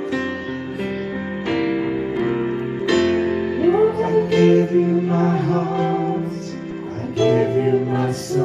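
Slow worship song: sustained chords on a Roland electric keyboard, with a woman's singing voice coming in over them about three and a half seconds in.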